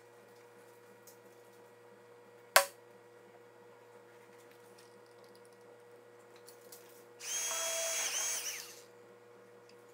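A small motor whirs loudly for under two seconds near the end, with a steady pitch. A single sharp click comes about two and a half seconds in, over a steady low hum.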